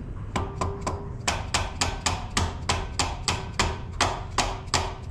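Small hammer tapping rapidly and steadily on the rocker arms and valve stems of an old tractor engine's open cylinder head, about four or five taps a second. It is working loose valves that are stiff or stuck, after they were soaked with penetrating oil.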